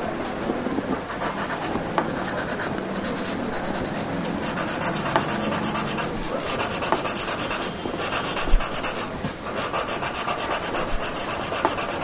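Graphite pencil scraping across drawing paper in rapid, short back-and-forth shading strokes, the broad side of the lead laying down hatching. A soft thump comes about two-thirds of the way through.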